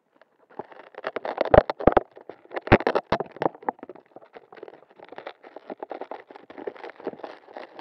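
Irregular scratching and clicking with several sharp knocks in the first three seconds, picked up close on a small on-board camera's microphone; no motor running.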